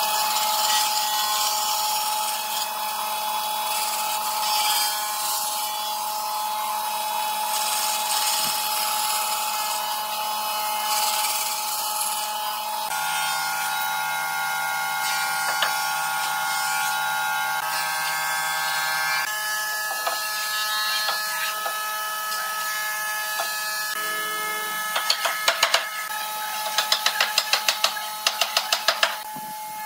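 A bandsaw cutting a pine board, then near the end a quick series of hammer blows, about three a second, knocking a wooden table leg onto its tenon.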